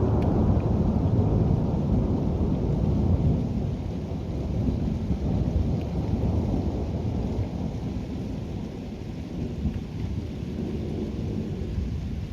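Thunder rolling in a long low rumble over rain. The rumble is loudest in the first few seconds and slowly eases off.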